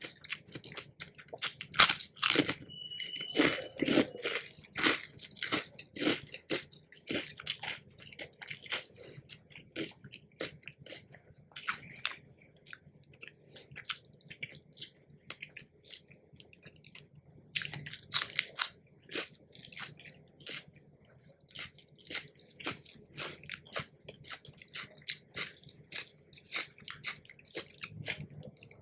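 Close-miked eating: crisp crunchy bites followed by steady chewing, with the loudest crunches about two seconds in and again a little past the middle.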